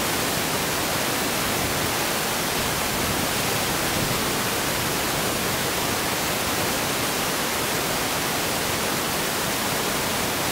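Steady, even hiss like static, unchanging throughout and loud enough to cover any sound of the match.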